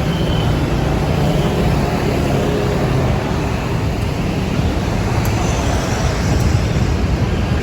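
Large diesel tour bus engine running close by, a steady low rumble mixed with road traffic noise.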